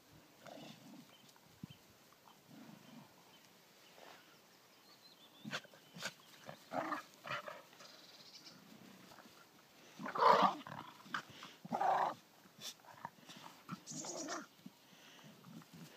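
A Soft-coated Wheaten Terrier and a puppy play-fighting: scattered low growls and several short louder yaps, the loudest about ten seconds in.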